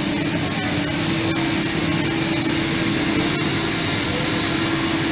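Serkon MC50 CNC fabric cutting machine running: a steady rushing noise with a constant hum, growing slightly louder towards the end.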